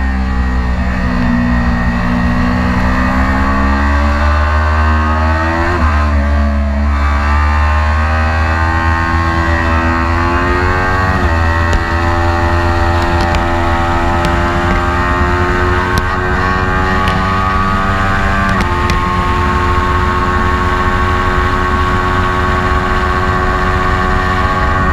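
Kawasaki Ninja 400 parallel-twin engine at full throttle, rising in pitch and dropping suddenly at three upshifts, at about 6, 11 and 18 seconds, before climbing again. Loud wind rush on the onboard microphone runs underneath.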